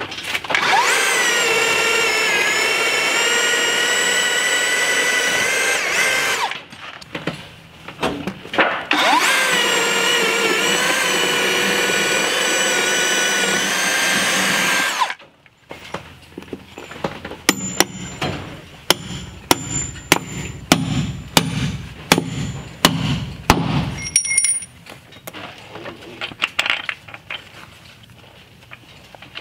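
DeWalt cordless drill running under load with a long auger bit, boring through a wooden truss, in two runs of about six seconds each with a short pause between, then stopping abruptly. A quieter series of sharp clicks and light knocks follows.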